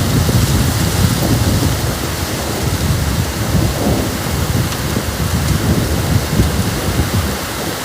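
Heavy rainstorm: a steady downpour with a constant rushing noise and a heavy, unsteady low rumble.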